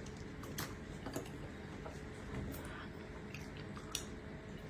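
Quiet eating sounds: chewing, with a few light clicks of utensils against dishes.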